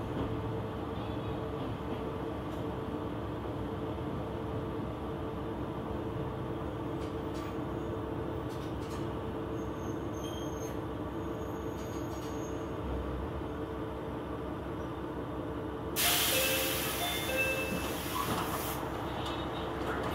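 KiHa 120 diesel railcar running, heard from inside: a steady engine drone and wheel-on-rail noise. About three seconds before the end, a sudden loud hiss starts and lasts about three seconds.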